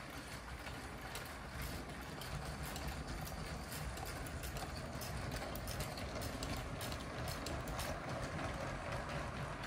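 LEGO train running over plastic LEGO track and through TrixBrix switches, its wheels clicking rapidly and irregularly over the rail joints and crossings.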